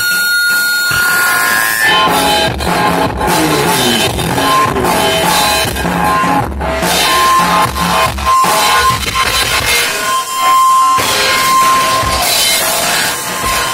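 Loud, dense rock-style music with a drum kit and guitar, thin for the first couple of seconds and then filling in fully.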